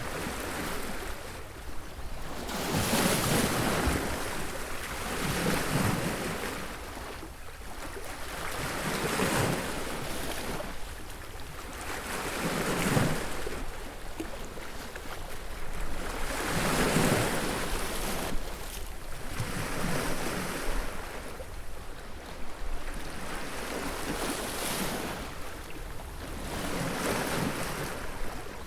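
Sea waves breaking on a beach, one after another: each wave swells into a rushing crash and washes back, a new one every three to four seconds.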